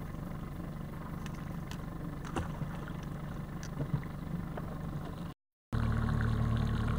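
Small outboard kicker motor running steadily at trolling speed, a low even hum with a few light clicks over it. It cuts out for a moment a little after five seconds in, then comes back louder.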